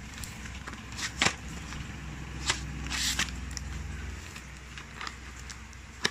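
Hands handling a taped cardboard box: scattered sharp clicks and scrapes, and a short tearing rasp of packing tape or cardboard about three seconds in, over a low handling rumble.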